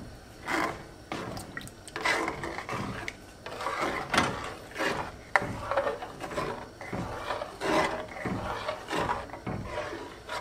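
A spoon stirring raw rice, salted water, garlic and onion in a caldero, scraping over the pot bottom in repeated strokes, roughly one a second.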